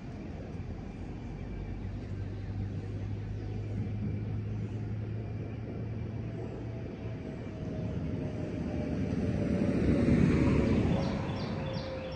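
A road vehicle passing, its noise building to a peak about ten seconds in and then easing off, with a slowly falling tone. Steady outdoor rumble throughout.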